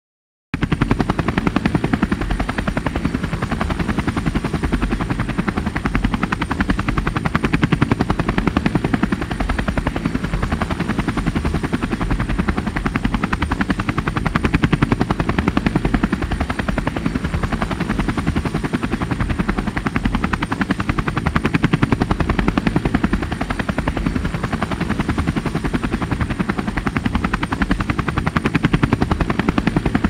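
Steady, rapid chopping whir with a thin high whine above it, like spinning rotors, starting abruptly about half a second in.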